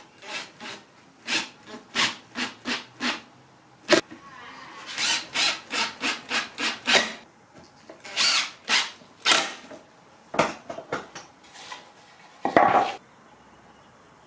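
Cordless drill boring and driving screws into a plywood panel in a series of short bursts. There is a sharp knock about four seconds in and a louder burst near the end.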